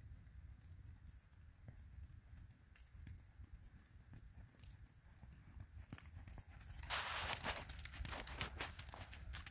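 Horse's hooves trotting on a sand arena, faint soft thuds that grow louder and denser about seven seconds in as the horse passes close by.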